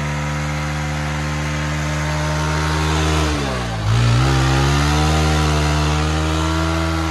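Bajaj Pulsar 220's single-cylinder engine held at high revs in a stationary burnout, its rear tyre spinning in loose sand. The revs dip sharply about three seconds in, then climb back and hold.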